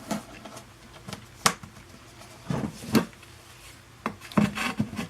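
Scattered light knocks, clicks and rustling from a homemade cardboard patch board being handled and put up against a wall, with a few sharp taps and a busier patch of handling noise near the end.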